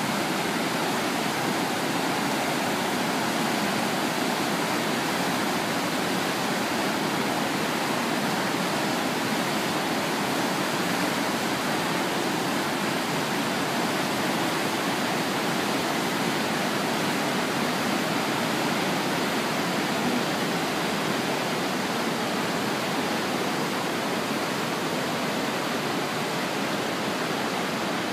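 Whitewater of the Kootenai River rushing through the rapids and falls at Kootenai Falls: a steady, loud, unbroken noise of churning water.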